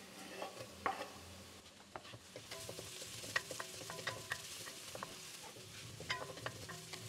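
Wooden spoon stirring sliced onions and garlic frying in oil in a black pan: a faint sizzle under many short clicks and knocks of the spoon against the pan.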